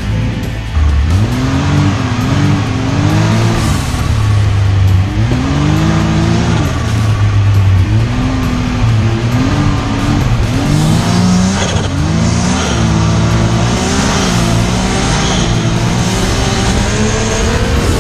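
Arctic Cat Wildcat XX side-by-side's engine revving up and dropping back again and again as the throttle is worked on a rough trail, heard from the cab.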